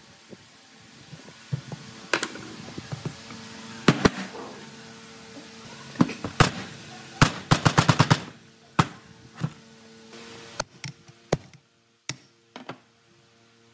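Sharp knocks and taps at irregular intervals, with a quick run of about seven strikes in under a second just past the middle, over a faint steady hum.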